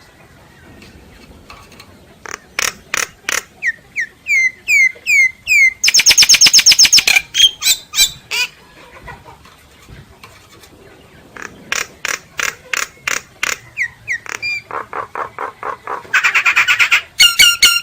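Vinous-breasted starling (sáo nghệ) singing: a string of sharp loud calls, a run of short falling whistles and two fast buzzing rattles, one about a third of the way in and one near the end.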